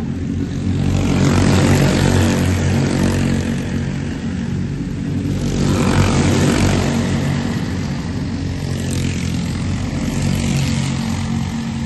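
An engine running steadily, with a rushing noise that swells and fades three times.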